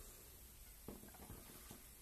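Near silence: room tone, with a few faint light taps between about one and two seconds in as the brake disc is handled.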